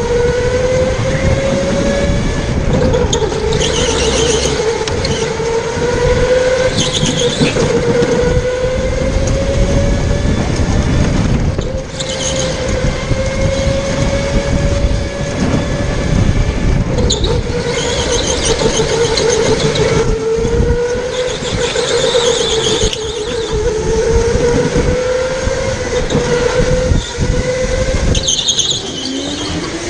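Electric go-kart motor whining: its pitch climbs as the kart speeds along each straight and drops back into the turns. Several short bursts of tyre squeal come in the corners, over a low rumble of wind and road.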